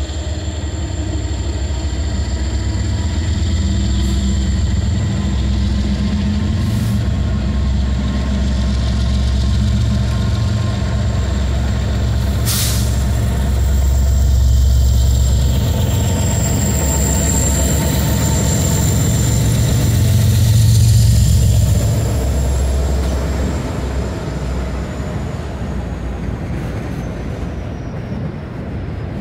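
Norfolk Southern diesel-electric locomotives, an SD70ACe leading, pass close by under power with a heavy engine drone that swells twice as the units go by. A thin high whine falls in pitch near the end as the double-stack container cars follow, and one sharp knock comes about twelve seconds in.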